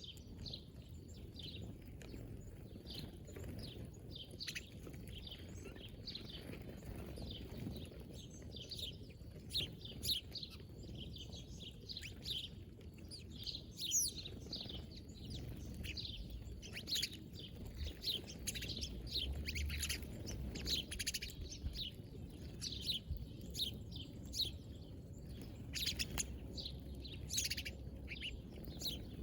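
Small birds chirping, with many short, high calls scattered throughout over a steady low background rumble.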